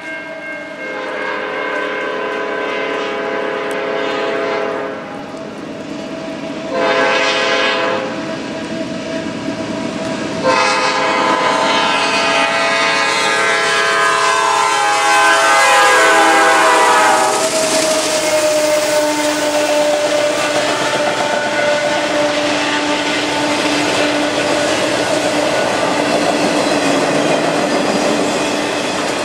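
Freight train's diesel locomotive air horn sounding for a road crossing: a long blast, a short one, then a long one whose chord drops in pitch as the locomotive passes. Then the locomotives and a line of autorack cars roll by with clattering wheels and a steady drone.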